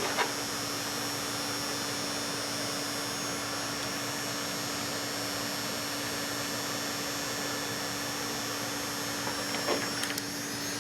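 Heat gun running steadily, an even blowing rush over a low motor hum, shrinking adhesive-lined heat-shrink butt connectors on the wiring. A few light clicks near the end.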